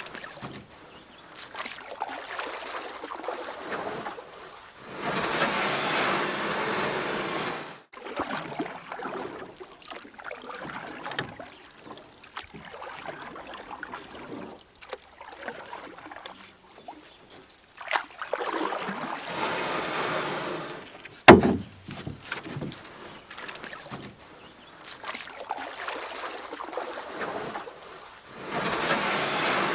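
Kayak paddle strokes splashing through the water in repeated swells, with one sharp knock about two-thirds of the way through.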